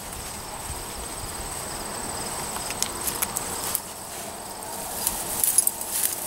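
A dog pushing through dry weeds and brush, the stems crackling and rustling in scattered bursts that grow louder near the end, over a steady high insect trill.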